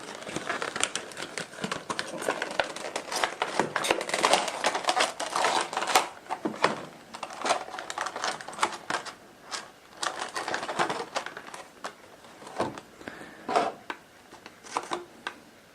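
Product packaging being opened and handled by hand: irregular rustling, crinkling and small clicks, busy for the first half and sparser near the end.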